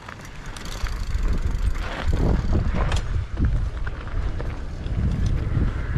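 Mountain bike ridden over rough trail, with scattered clicks and rattles from the bike, and wind buffeting the camera microphone as a loud rumble that swells about a second in.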